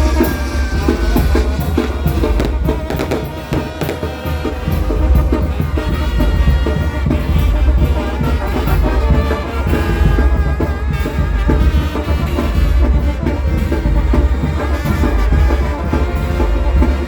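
Loud music with drums and a heavy, steady bass.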